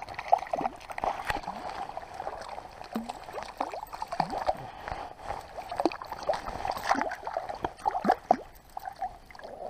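A small hooked brook trout thrashing at the water's surface as it is landed, with irregular short splashes and gurgles, and a hand splashing into the water near the end to grab it.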